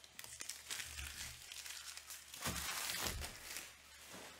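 Trading-card pack wrappers crinkling and tearing as packs are handled and opened, loudest a little past the middle.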